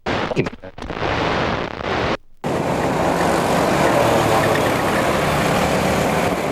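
Steady rushing noise of a moving motor vehicle, with a low engine running under it, cut off abruptly twice in the first two and a half seconds.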